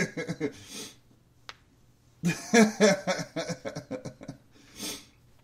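A man's voice speaking in short, low phrases that the transcript did not catch. The phrases are split by a pause about a second in, broken by a single faint click, and followed by a short breath near the end.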